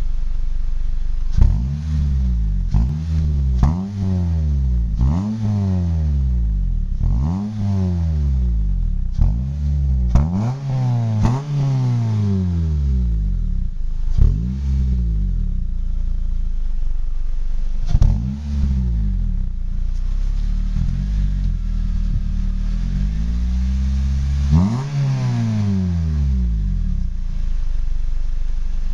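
2010 Honda Element SC's 2.4-litre K24 four-cylinder, heard at the tailpipe of its aftermarket Injen exhaust, idling and being free-revved. It gives about eight quick revs in the first twelve seconds, then a few spaced revs and a longer rev near the end, each rising and falling back to idle.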